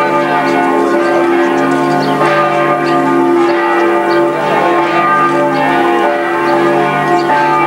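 Church bells ringing, several bells sounding at once in overlapping, sustained tones.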